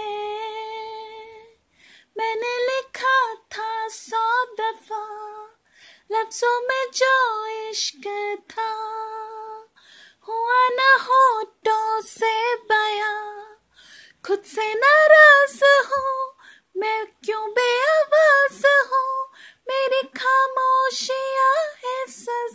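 A woman singing solo and unaccompanied, in held, gliding phrases broken by short pauses for breath.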